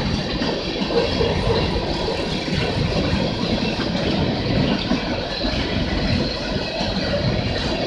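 Empty coal hopper cars of a BNSF freight train rolling steadily across the bridge overhead: a continuous rumble of wheels on the rails, heard from beneath the bridge.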